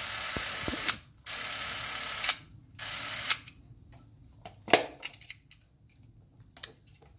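Canon 310XL Super 8 camera's motor and film-drive mechanism running in three short bursts with an empty cartridge chamber, each a steady whirr with a high whine, the last the shortest. Then a sharp click, the loudest sound, and a few lighter handling clicks.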